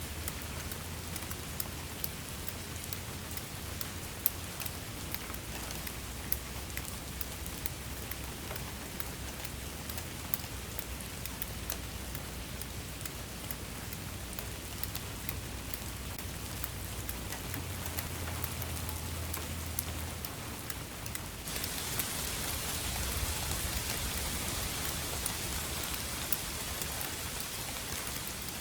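Steady rain falling, with many individual drops ticking over a continuous hiss and a low rumble underneath. About three quarters of the way through the hiss grows suddenly stronger, as the rain comes down harder.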